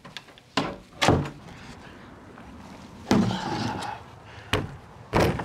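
A wooden door pulled shut, knocking as the latch catches about a second in. Further clunks and a short rattle follow a few seconds later.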